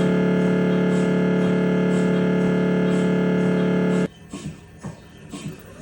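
Siemens Magnetom Espree 1.5 T MRI scanner's gradient coils giving out a loud, steady buzzing tone during a scan sequence. The tone stops abruptly about four seconds in and is followed by quieter, irregular knocking.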